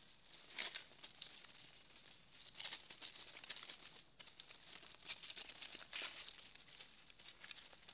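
Faint, irregular crackling and rustling of dry leaf litter as monkeys scamper and chase over it, with a few louder crunches.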